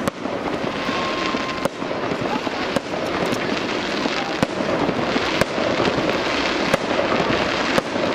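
Fireworks display: aerial shells bursting overhead, with sharp bangs about once a second over a steady dense crackle.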